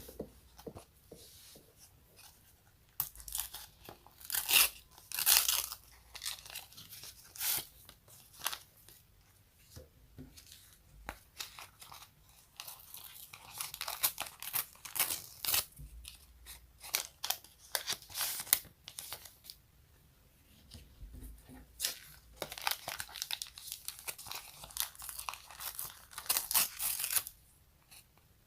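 Something sticky being pulled apart and peeled away, making a crackling, tearing sound. It comes in irregular clusters of short crackles with quiet gaps between them.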